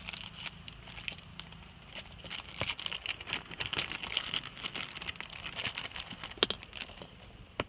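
Rustling and crinkling with many light clicks and taps from hands handling a plastic sunglass frame and its replacement lens. There are a couple of sharper clicks near the end.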